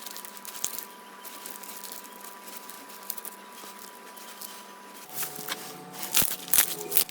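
Slime being pressed and worked by hand: a soft, continuous crackle for about five seconds, then sharper, louder pops and clicks.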